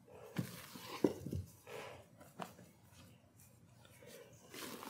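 Spatula scooping thick angel food cake batter (beaten egg-white meringue) out of a bowl into a metal tube pan: soft scrapes and squishes, with a few light knocks of the spatula against the bowl or pan in the first couple of seconds.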